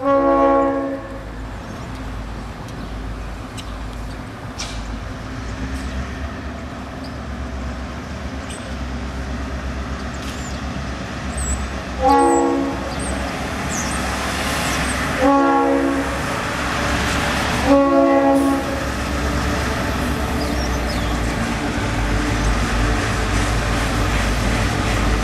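Horn of an approaching South Shore freight train led by EMD GP38-2 diesel locomotives, sounding short blasts: one at the start, then three more a few seconds apart in the second half. Under the horn is the low rumble of the diesels, which grows louder near the end as the train draws close.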